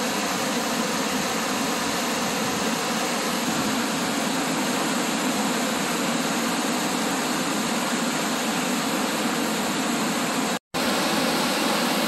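Whitewater of the York River rushing down rock chutes, a steady, even rush. It cuts out for a split second near the end and comes straight back.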